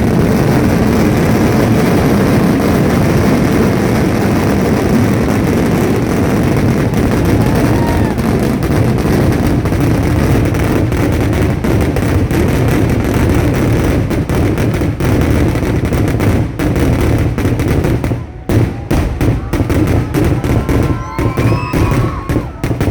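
Kerala temple-festival fireworks (vedikkettu): a dense, unbroken barrage of firecracker explosions that breaks into separate bangs with short gaps about 18 seconds in, as the salvo thins out.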